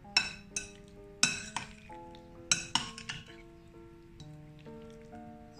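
A metal spoon clinks against a glass bowl while stirring diced mango and cucumber in salad dressing: about seven sharp, ringing clinks in the first three seconds, then quieter scraping, over soft background music.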